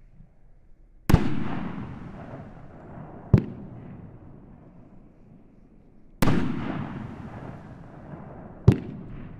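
Alpha Male consumer fireworks cake firing brocade crown shells. Two loud aerial breaks, about a second in and again past the middle, each boom echoing away over a couple of seconds. Between them come two short, sharp launch thumps from the tubes, one a few seconds in and one near the end.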